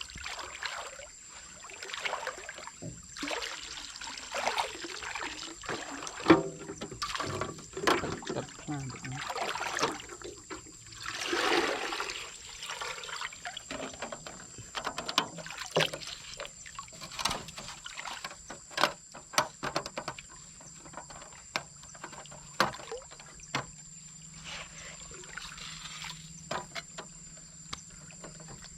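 Water splashing and trickling, with many scattered sharp knocks and clicks. A faint low hum runs through the second half.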